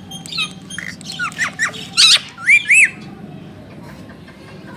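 Pet parakeets chattering and squawking: a quick run of short chirps and arched whistled calls, the loudest squawks about two to three seconds in, then they stop.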